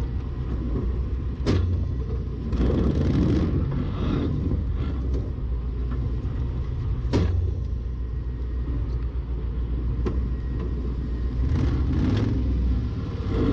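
Off-road pickup's engine idling with a steady low rumble while the vehicle stands at the start line. There are two sharp clicks, about a second and a half in and about seven seconds in.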